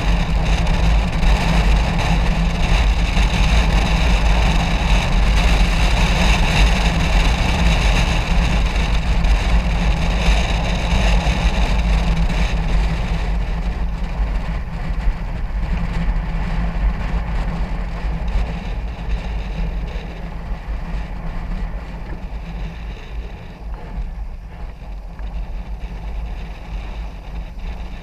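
Wind rushing over the microphone of a motorcycle coasting downhill with its engine switched off, with no engine sound. The rush grows quieter from about halfway through.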